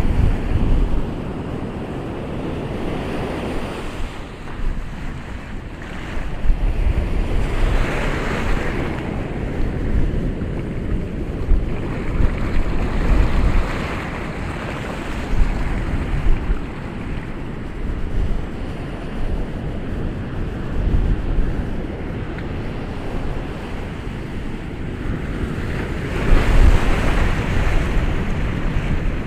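Ocean waves breaking and washing on a shore, the surf swelling and easing every few seconds, with wind buffeting the microphone.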